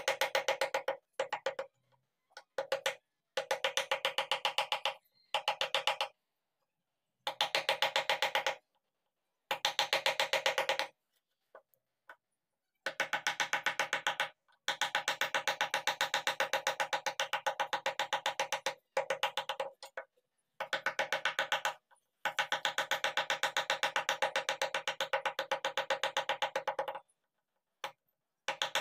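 Wooden mallet tapping a carving chisel into wood in quick, even strokes with a hollow ringing knock. The strokes come in runs of a few seconds, stopping and starting several times.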